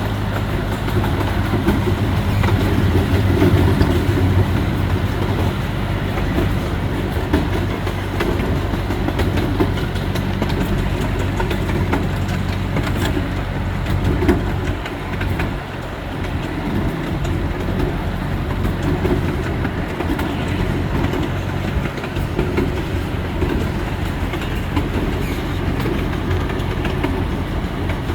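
Pioneer miniature train running along its track, heard from up front: its locomotive engine hums steadily, and the wheels rumble and click over the rails.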